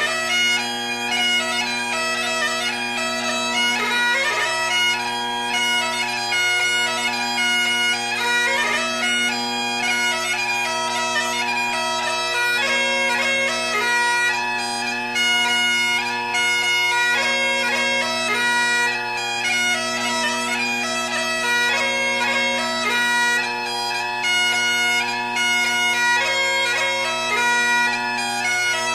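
Bagpipe music: steady drones held under a quick-moving chanter melody.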